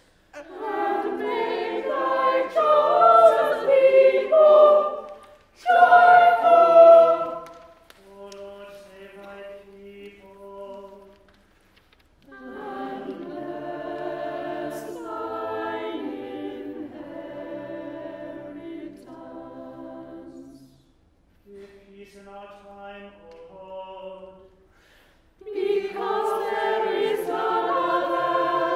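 Unaccompanied choir singing sung responses, its full phrases answering quieter chanted lines from a single cantor, each held largely on one note.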